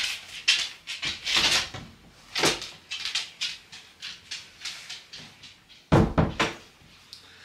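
A string of short knocks and clatters, with a louder thump about six seconds in.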